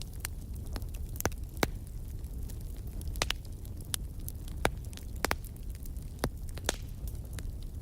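Wood fire burning in a fireplace: a steady low rumble of the flames with irregular sharp crackles and pops, a dozen or so over a few seconds.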